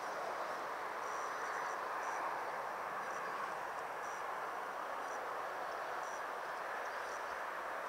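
Steady outdoor background noise, like a distant hiss or rumble, with faint short high peeps now and then and a sharp click at the very end.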